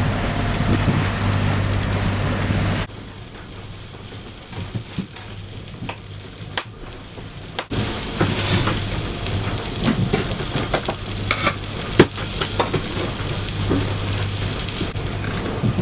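Italian sausage and shrimp sizzling as they fry in a pot, with short clicks of a utensil stirring them. The sizzle drops away suddenly about three seconds in and comes back louder about eight seconds in.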